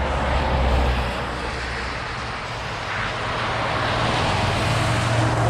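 Kyosho Blizzard 2.0 RC snowcat's brushless motors driving its tracks through snow, a continuous mechanical whir that eases off around two seconds in and then builds again.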